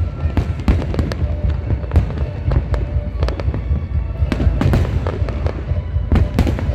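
Aerial fireworks going off: a rapid, unbroken run of bangs and crackles over a steady low rumble.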